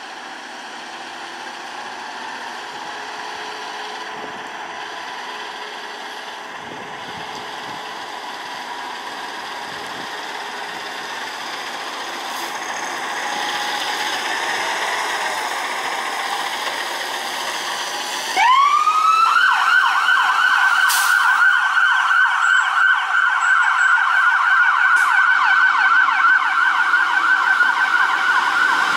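Fire engine's diesel engine running as the truck pulls out, then about two-thirds of the way in its siren switches on abruptly and keeps going as a loud, fast yelp.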